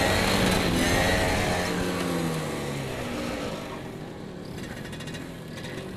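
Vespa scooter engine running while riding, its pitch falling as the throttle is eased off, then running quieter from about halfway through.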